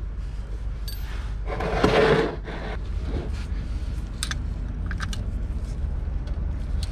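A rough scrape about two seconds in, then a few light metallic clicks, over a steady low hum.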